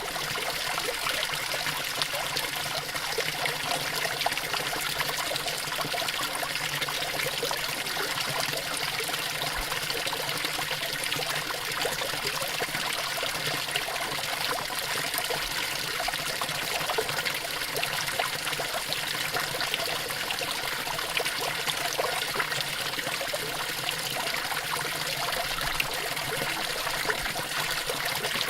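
Water fountain running: a steady splashing and trickling of falling water, unchanging throughout.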